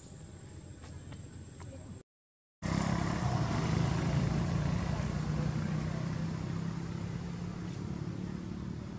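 The sound drops out for about half a second about two seconds in. After that a motor vehicle's engine runs loudly and slowly fades away.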